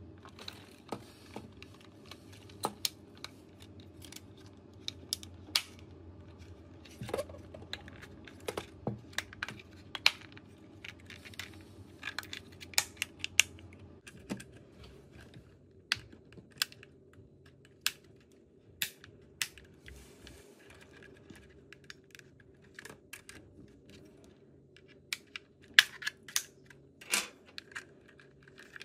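Irregular small clicks and taps of plastic parts being handled and pressed together: a DJI Mini 4 Pro drone's top cover being fitted back onto its latches. A faint steady low hum runs underneath.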